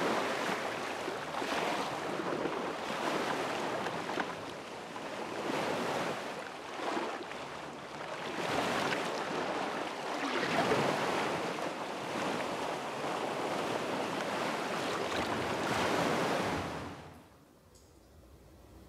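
Sea waves washing onto a shore, a steady rush that swells and ebbs, with some wind; it cuts off about seventeen seconds in.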